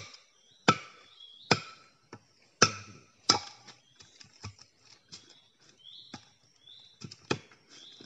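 Machete chopping green bamboo: about five sharp hacks in the first three and a half seconds, then lighter, scattered knocks.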